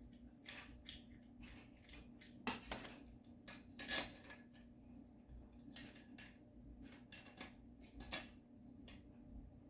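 Small metal wrench clicking and scraping on a caster wheel's screw cap as the cap is tightened: irregular light clicks with a few louder clinks.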